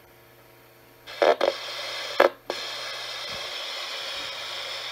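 Gakken toy record cutter playing back a freshly cut disc: a few clunks as the tone arm and needle are set down about one and two seconds in, then a steady static hiss from its small speaker with no music in it, because the recording head failed to cut any sound into the groove.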